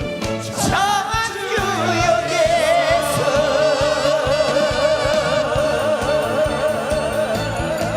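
Trot song with live band accompaniment, a singer holding one long note with wide vibrato from about a second and a half in.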